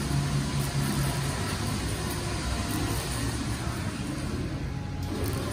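A motor running steadily with a low, even hum while a heavy, fully loaded toolbox is pulled up onto a trailer by cable.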